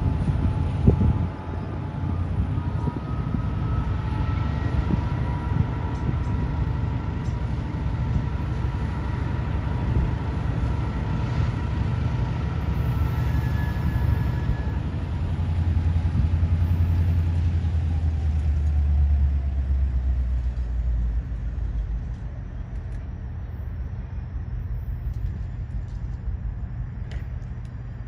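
A train going by: a steady low rumble with a few steady whining tones, one of which slides lower in pitch as it passes, then fading near the end.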